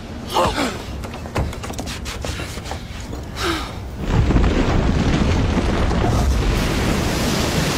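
Film sound effect of a giant stone creature crumbling: a few thuds at first, then from about four seconds in a loud, steady rumble of breaking and falling rock.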